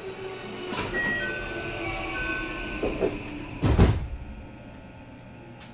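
Inside a JR West 221-series train at a station stop: a few short electronic tones, then the doors slide shut with a heavy thud about four seconds in.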